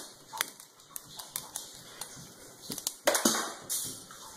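Light clicks and taps of a cat and the phone being handled, then a loud jolt and scuffle about three seconds in as the cat pounces at the phone.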